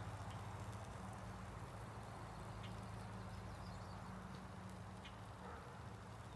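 A steady low hum under a faint even hiss, with a few soft taps as a basting brush dabs sauce onto chicken drumsticks on a charcoal grill.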